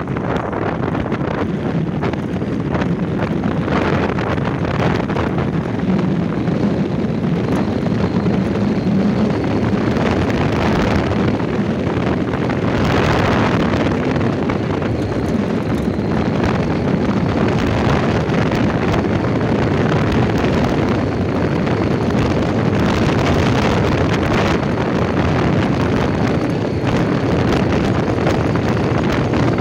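Wind rushing and buffeting over the microphone of a moving car, over the steady rumble of its engine and tyres on the road.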